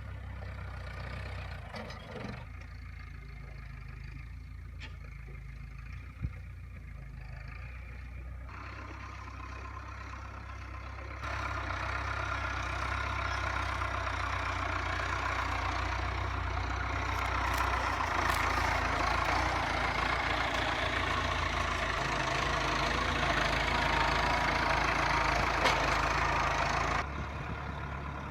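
Old Massey Ferguson tractor's diesel engine running steadily while driving, growing louder and noisier about eleven seconds in and easing back about a second before the end.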